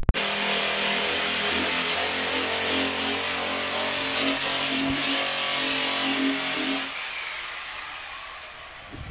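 Electric angle grinder running steadily as it trims the burrs off the edge of a plastic-drum canoe. About seven seconds in it is switched off and winds down, its whine falling in pitch as the disc slows.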